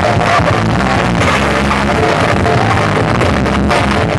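Loud music with heavy bass played through a large outdoor sound-system rig. It runs steadily and without a break.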